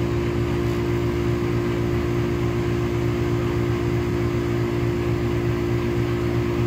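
Goodman R410A air-conditioning condensing unit running, a steady hum from the compressor and condenser fan.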